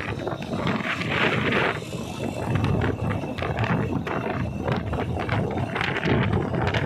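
Wind buffeting the microphone in uneven gusts, over road noise from a vehicle moving along the road.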